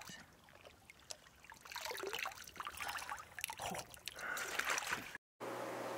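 Lake water splashing and dripping as a Lahontan cutthroat trout is handled at the water's edge, in uneven swells. Near the end it cuts off abruptly and gives way to a steady low hum.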